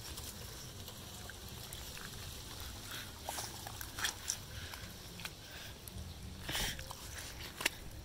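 Fingers squelching and pressing wet mud and sodden straw in a shallow puddle: scattered wet clicks and squishes, with a louder squelch about six and a half seconds in.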